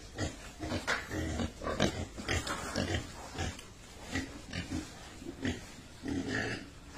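Pigs grunting: many short grunts in quick, irregular succession, with one longer call near the end.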